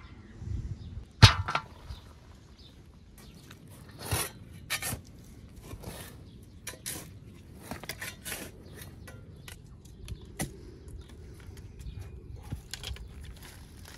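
A large metal pan set down over a pit with one sharp clank about a second in, then a spade scraping into dry soil and throwing it onto the pan again and again.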